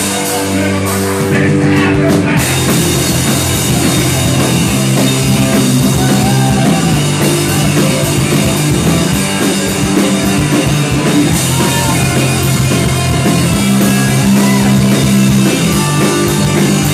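Live punk rock band playing loud, with drums and electric guitars; the sound fills out about two seconds in.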